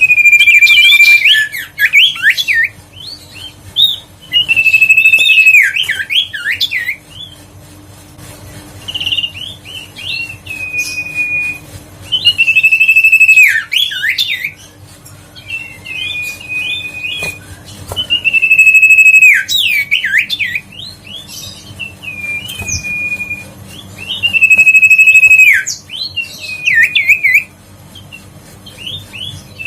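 Common iora singing: repeated loud phrases, each a held whistled note followed by quick up-and-down notes, coming every few seconds.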